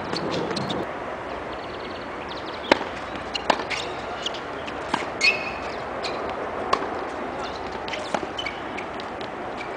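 Tennis ball being struck by a racket and bouncing on a hard court during a rally: sharp pops at irregular intervals of about one to one and a half seconds, over steady outdoor background noise with birds chirping.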